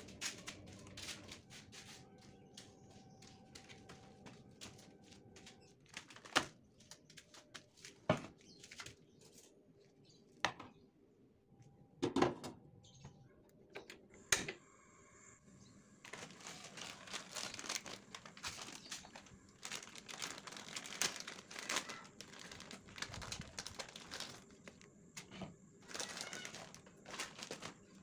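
Several separate sharp clicks and knocks, one of them the click of a gas stove knob being turned about halfway through. Then plastic and foil seasoning sachets crinkle and tear as they are opened by hand over a bowl.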